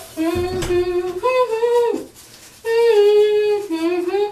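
A woman humming a wordless tune in long held notes that step up and down, pausing briefly near the middle. There is a short thump about half a second in.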